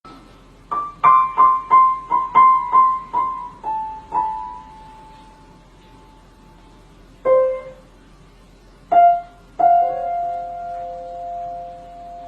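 Piano keys struck one at a time in the high register: a quick run of about ten notes near the same pitch, then a pause and a few single notes, the last two left ringing and slowly fading.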